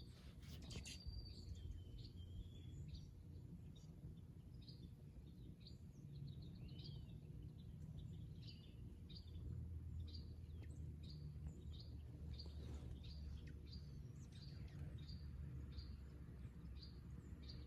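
Morning birdsong: a few whistled notes in the first seconds, then a bird repeating short high chirps about twice a second, over a faint steady low rumble.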